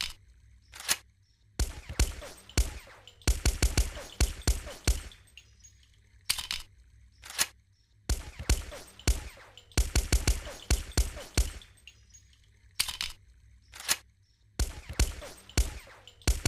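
Sound effect of a suppressed M1911 pistol firing: single shots and quick strings of several shots at about five a second, separated by short pauses.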